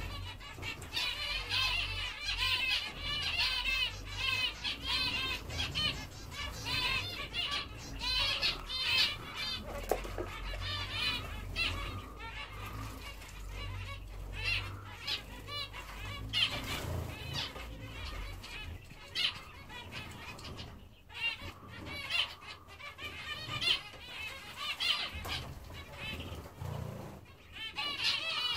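Aviary zebra finches calling, a near-continuous chatter of short, repeated nasal beeps in quick runs.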